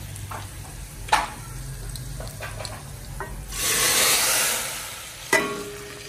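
Tadka of hot oil with garlic and chillies sizzling in a steel pan. About three and a half seconds in it is poured into the pot of cooked dal, which brings a loud sizzle that swells and fades over about a second and a half. There are two sharp knocks, about a second in and near the end.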